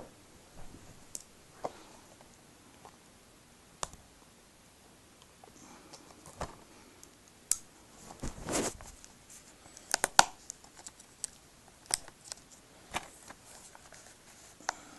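Hands fumbling with the plastic packaging of a Blu-ray case: scattered clicks, taps and rustles, with a short scraping rustle about eight seconds in and a quick cluster of sharp clicks, the loudest, about ten seconds in.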